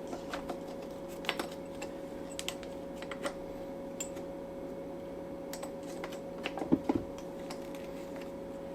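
Scattered light clicks and taps as a toothed rubber timing belt is worked by hand onto the cam and tensioner pulleys of a Ducati 848 engine, with a few louder knocks about seven seconds in. A steady hum runs underneath.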